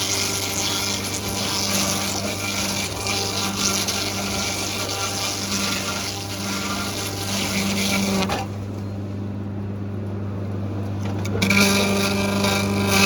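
Sawmill machinery running with a steady low hum under a rushing hiss. The hiss cuts out for about three seconds, leaving only the hum, then comes back.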